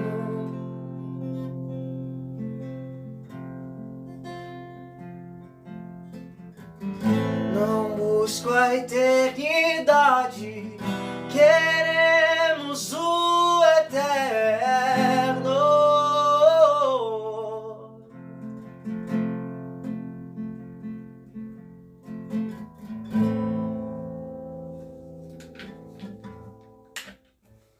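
Acoustic guitar playing slow ringing chords, joined in the middle by a voice singing a wavering melodic line, then the guitar alone again, fading out as the song ends.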